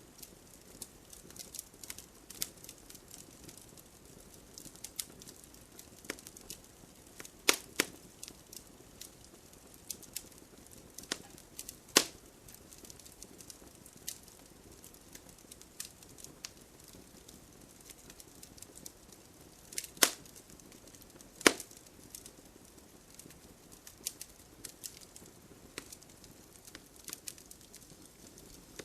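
Wood fire burning in a fireplace: a soft steady hiss with frequent sharp crackles, and a few louder pops of snapping wood.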